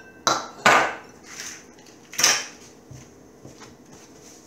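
A few short, sharp knocks and clinks of kitchen dishes and a metal whisk being set down against glass bowls on a countertop, the loudest about three-quarters of a second in and another about two seconds in. After that it goes quiet, with only faint handling.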